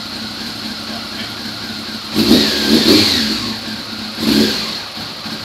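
Honda CBR600F4i's fuel-injected inline-four idling, then its throttle snapped open twice, about two seconds in and again near the end. Each time the revs rise unevenly and fall back instead of climbing cleanly: the bog and stutter on wide-open throttle, which the owner asks may be a fuel problem.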